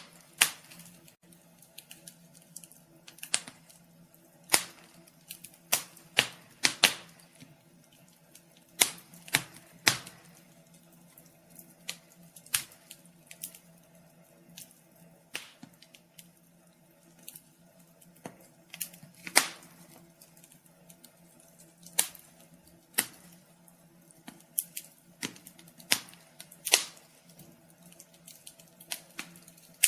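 Wood fire crackling: irregular sharp pops and snaps, a few each second in uneven clusters, over a faint steady hum.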